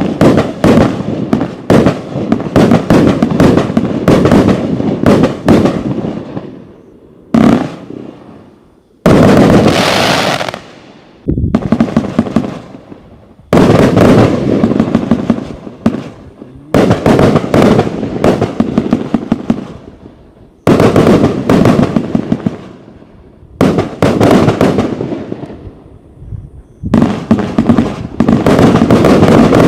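Riakeo Tsunami firework firing in repeated volleys of rapid bangs and crackling. Each volley starts suddenly, lasts a few seconds and fades, with brief lulls between them.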